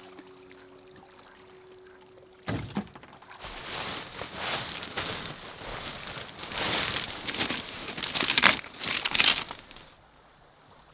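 Nylon tent fabric rustling and crinkling in dense bursts for about seven seconds as a tent is pulled from its stuff sack and shaken out. It starts suddenly a couple of seconds in and is loudest shortly before it stops.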